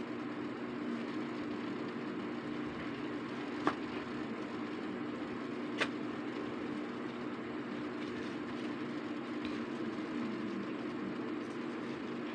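A steady low hum of background noise, with two brief clicks about two seconds apart.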